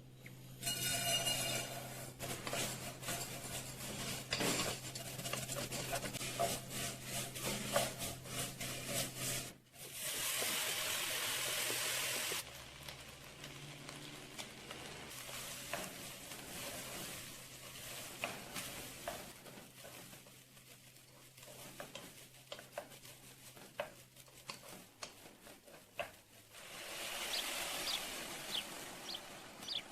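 A spoon stirring and scraping in a cooking pot, with many small knocks against the pot, over food sizzling in oil. A louder hiss rises about ten seconds in and lasts a couple of seconds, and comes again near the end.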